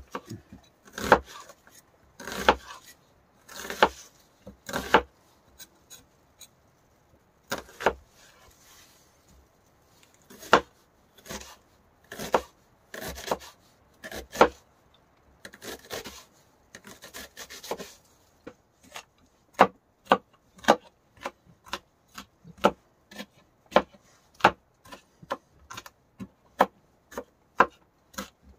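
Knife chopping vegetables finely on a cutting board: slower, spaced slicing cuts at first, then from about two-thirds of the way in a steady quick chopping rhythm of about two to three strokes a second.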